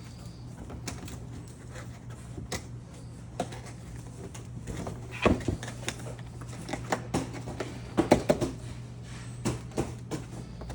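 Corrugated cardboard being folded and handled: irregular creasing, taps and scrapes, with a few louder knocks about halfway and two-thirds through, over a steady low hum.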